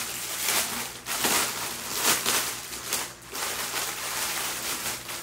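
Thin plastic packaging bag crinkling and rustling in irregular bursts as a pillowcase is handled and unwrapped from it.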